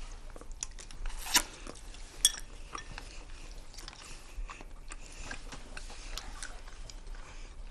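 Chopsticks clinking against porcelain rice bowls and plates, with chewing at a dinner table: scattered light clicks, two sharper ones in the first few seconds.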